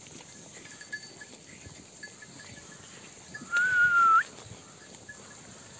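A sheep bleats once, a single call of well under a second about three and a half seconds in, wavering a little and then flicking upward at the end. The rest is faint yard background.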